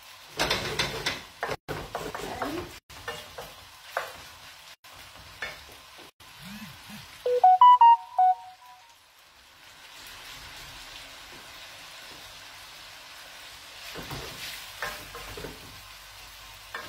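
Mezze maniche pasta stirred with a wooden spoon in a frying pan, scraping and sizzling as it cooks through in pasta water. The stirring is busiest at the start and again near the end, with a steady low sizzle in between. About seven seconds in, a short, bright run of musical tones is the loudest sound.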